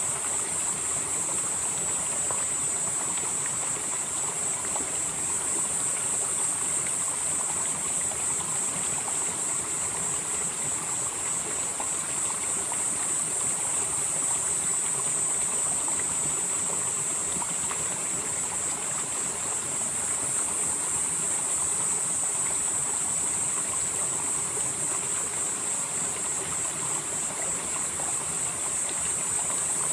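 Mountain valley stream flowing steadily over rocks, with an unbroken rush of water. Over it runs a steady high-pitched shrill that swells and eases every few seconds.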